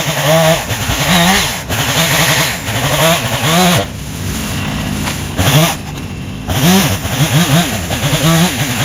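Chainsaw engine revving up and down over and over, its pitch rising and falling in quick arcs, easing briefly to a lower, steadier note midway before revving again.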